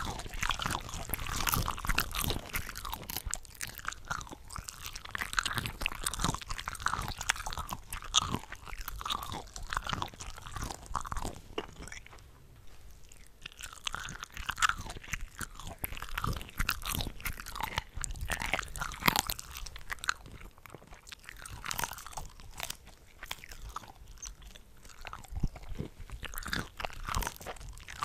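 Shrimp from a shrimp cocktail ring being bitten and chewed, with wet, crunchy mouth sounds; several eating tracks are layered over one another, so the bites and chews overlap densely. The chewing eases off briefly about halfway through.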